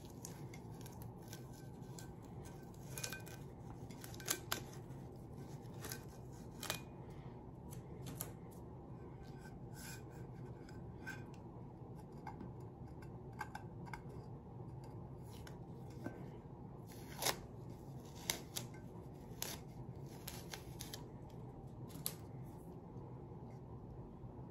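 Blue painter's tape being peeled off a glitter-coated metal tumbler: faint crackling and scattered sharp ticks at irregular intervals over a steady low hum.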